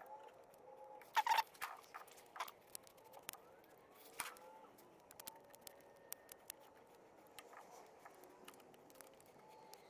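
Sparse light clicks and scrapes of a razor blade trimming excess gasket material from the edge of a diesel accessory drive housing, with a louder cluster of clicks a little over a second in.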